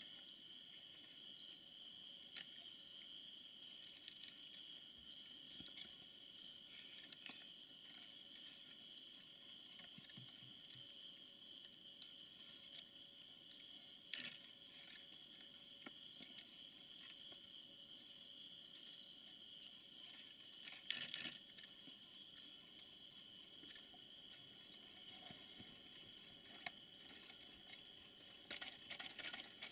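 Steady night chorus of insects, a continuous high-pitched trilling in several layered pitches, with a few faint clicks or rustles around the middle and near the end.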